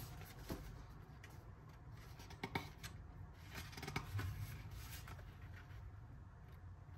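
Paper pages of a softcover art book being turned by hand: soft rustles and flaps, busiest around the middle as several pages are flipped.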